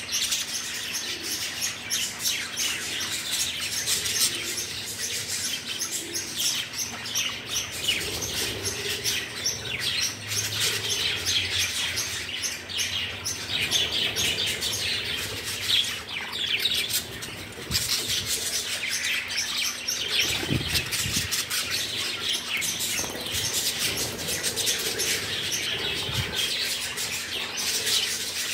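A flock of budgerigars chattering: a dense, unbroken mass of high chirps, warbles and squawks.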